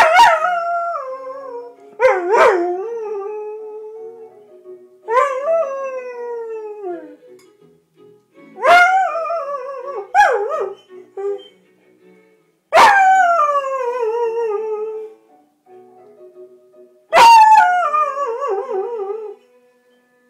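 Standard Poodle howling along to television theme music: a string of about seven long howls, each starting sharply high and sliding down in pitch, with the music playing faintly beneath.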